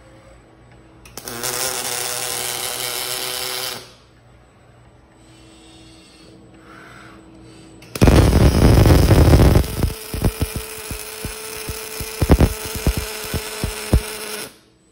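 A Lincoln-Fanuc collaborative robot's MIG welding torch strikes an arc about eight seconds in with a loud crackling burst, then welds with a steady crackle and frequent sharp pops, stopping just before the end. Earlier, a steady machine whir runs for about two and a half seconds.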